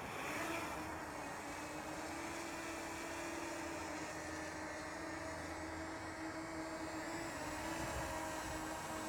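Quadcopter drone's propellers spinning up for takeoff, starting suddenly with a brief rising pitch, then a steady buzzing hum as it lifts off and climbs.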